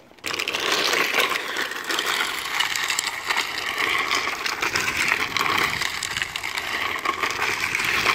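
The hard plastic rear wheels of a drift trike sliding and grinding on asphalt as it spins donuts: a steady, gritty scraping with slow rises and falls. It starts abruptly just after the beginning.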